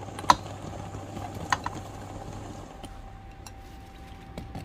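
Cut Thai round eggplant wedges tumbling from a glass bowl into a pot of coconut-milk curry. Two sharp knocks come about a third of a second and a second and a half in, with fainter ticks and soft rustling through the rest.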